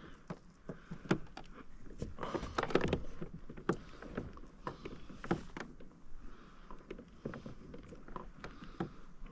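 Irregular knocks and clicks of gear and a handled fish against a plastic kayak hull, some sharper than others.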